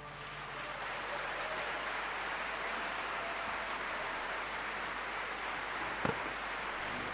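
Audience applauding: a steady, even patter of many hands clapping, building up over the first second, with a single short knock about six seconds in.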